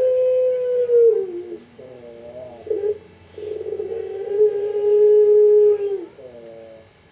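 Puter pelung, a Barbary dove bred for long drawn-out coos, cooing. A long coo slides down and ends about a second and a half in; after a short wavering call, a second coo is held steady for nearly three seconds and falls away near the end.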